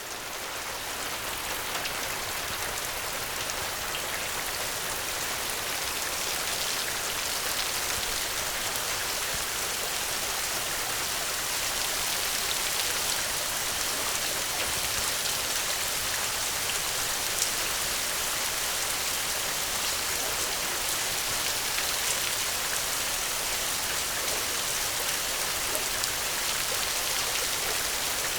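Steady, heavy rain falling, swelling in over the first second or two and then holding even.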